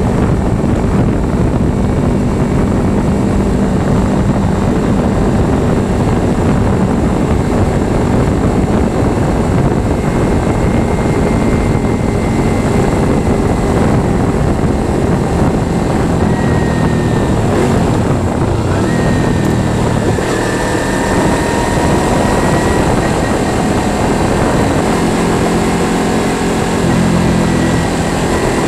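Kawasaki Ninja 300's parallel-twin engine running at road speed under a heavy rush of wind noise on the bike-mounted camera, its pitch shifting a few times in the second half.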